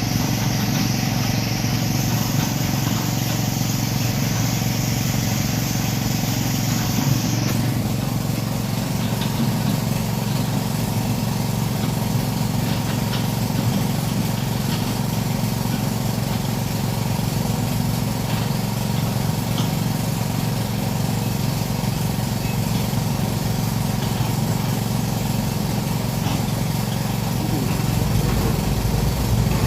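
Sumitomo SH210-5 excavator's diesel engine running steadily. A high hiss over it cuts off about seven seconds in.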